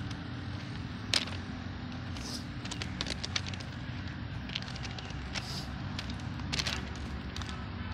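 Footsteps crunching on loose stone railway ballast: irregular sharp crunches and clicks over a steady low rumble.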